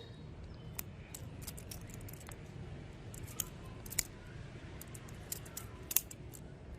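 Sharp, light metallic clicks and clinks at irregular intervals, a few in quick succession, the loudest about four and six seconds in, as of the handles of a handmade butterfly knife being flipped and clacking against the blade.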